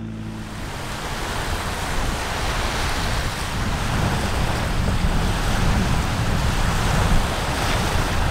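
Surf breaking on a beach, a steady rushing wash, with wind buffeting the microphone in a gusty low rumble. It builds over the first couple of seconds, then holds steady.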